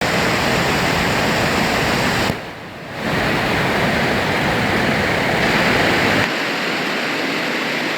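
Rain-fed waterfalls pouring down cliffs, a loud, steady rush of falling water. It goes briefly quieter about two and a half seconds in, and the deep part of the rush drops away a little after six seconds.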